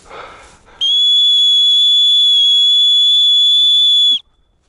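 A dog whistle blown in one long, steady, high-pitched blast of about three seconds, starting just under a second in and cut off sharply. It is a recall signal calling back a hunting dog that has run off after a hare.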